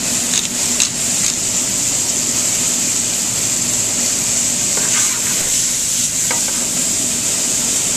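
Vegetables sautéing in garlic oil and white wine in a sauté pan over a gas flame: a steady sizzle, with a few brief knocks as the pan is tossed, about a second in and again near five and six seconds.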